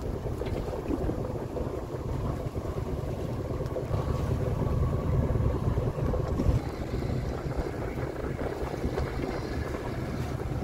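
Wind buffeting the microphone aboard a sailboat under way, a gusty low rumble with some water noise underneath.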